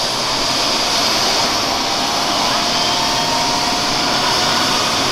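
Airbus EC135 P2+ helicopter on the ground, its twin Pratt & Whitney PW206B turboshaft engines running with the rotor turning: a loud, steady turbine whine over an even rushing noise.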